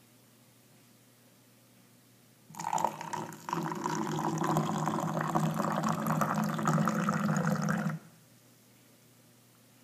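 A thin stream of water poured from above into a metal can of instant snow powder. The pour starts about two and a half seconds in, falters briefly, then runs steadily for about four and a half seconds and stops suddenly.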